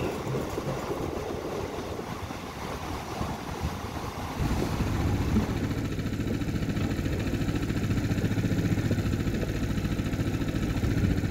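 Small outboard motor on an inflatable dinghy, running steadily under way. It comes in about four seconds in, after a few seconds of irregular rushing noise.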